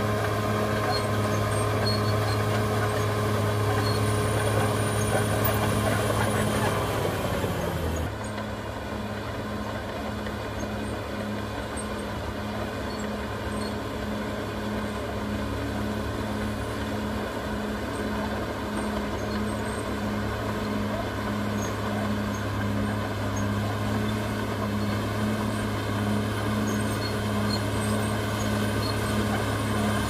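Caterpillar D6R XL bulldozer's diesel engine working as the dozer pushes a load of earth with its blade, a loud steady drone. A little over six seconds in the engine note sinks and grows quieter, then it runs steadily at the lower level.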